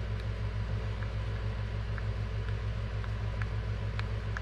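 A steady low machine hum with a fast, even flutter, and a few faint light clicks scattered about half a second to a second apart, fitting the buttons of a car key remote being pressed while it is tested.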